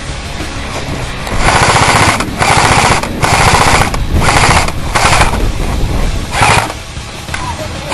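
Airsoft electric gun (AEG) firing full-auto: six or so short bursts in quick succession, each under a second, starting about a second and a half in, with one more burst right at the end.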